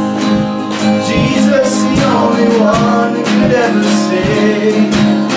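Live worship song: an acoustic guitar strummed steadily under a sung melody, over a steady low held note.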